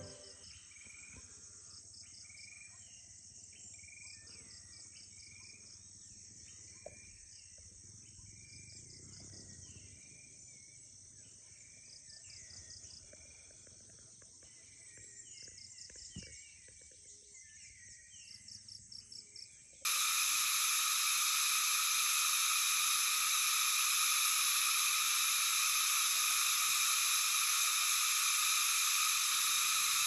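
Insects chirping faintly in short repeated trills, with scattered short animal calls. About two-thirds of the way through, it changes abruptly to a loud, steady, high-pitched insect drone.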